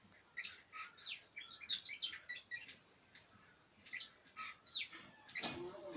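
Oriental magpie robin singing: a rapid run of varied whistled notes and short slurs, with one long held high note about midway through, and a lower, rougher note near the end.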